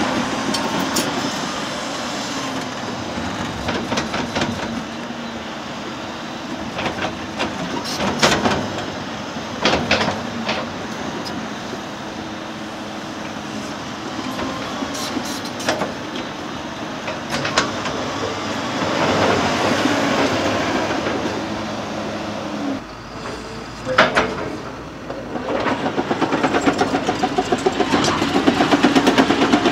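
Heavy diesel construction machine running under load, with scattered metal clanks and knocks; one loud knock comes about 24 seconds in, and a fast, even rattle builds over the last few seconds.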